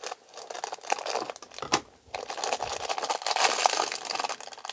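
Small toy packaging crinkling and crackling as it is handled and opened by hand, with scattered small clicks; the handling gets busier about two seconds in.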